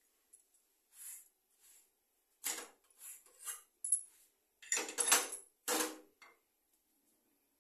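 Metal kitchen tongs and utensils clinking and clattering against a griddle and plates, in a string of short irregular knocks, the loudest cluster about five seconds in.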